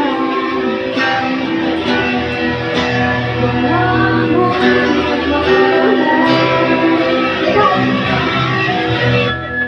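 A band playing a song, led by guitar, with some singing.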